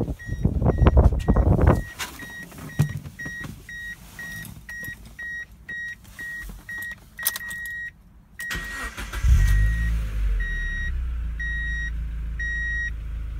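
2000 Mazda Miata's dashboard warning chime beeping about twice a second, with rustling and knocks at the start. About eight seconds in, the starter cranks briefly and the 1.8-litre four-cylinder catches and settles into a steady idle, while the chime goes on more slowly before stopping.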